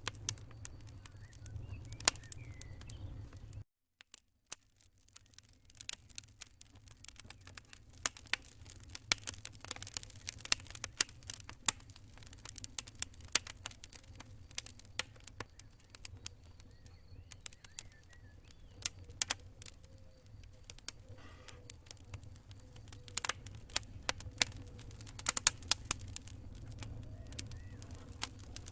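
Wood fire in a fireplace crackling, with many sharp pops and snaps over a steady low rumble. The sound cuts out for a moment about four seconds in, then resumes.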